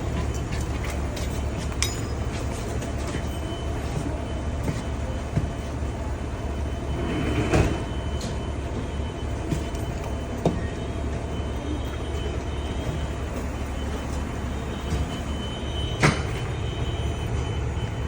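Steady low mechanical rumble, with a few scattered knocks and clicks.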